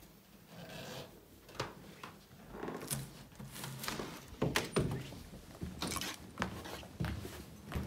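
A wired-glass door pushed open by its push plate about halfway through, then footsteps going down carpeted wooden stairs. There are scattered soft thuds and knocks with clothing rustling between them.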